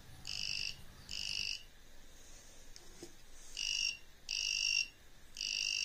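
Buzzer of a homemade three-BC547-transistor AC voltage detector giving short high-pitched beeps, five in all at uneven intervals, each about half a second long. The beeps signal that the circuit's wire antenna is picking up the field of a nearby AC voltage supply.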